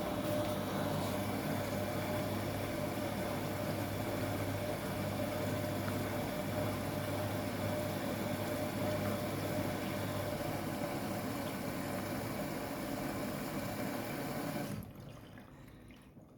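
Front-loading washing machine running with a steady watery rush and a low hum, stopping abruptly near the end.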